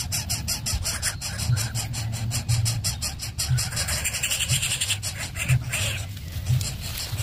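Greater coucal nestlings begging at the nest with a rapid, even rasping, about six pulses a second, which fades out about five seconds in, over a low rumble.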